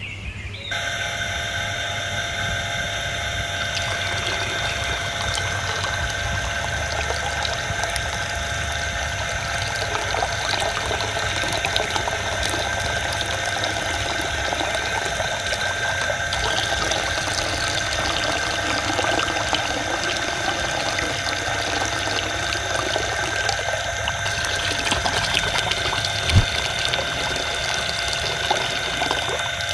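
Miniature electric water pump switched on just under a second in, then running steadily with a thin whine while water pours from its hose into a small model pond. One brief knock near the end.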